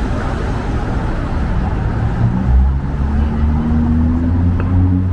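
City street traffic: the noise of passing cars, then from about two seconds in the low, steady hum of a nearby vehicle's engine.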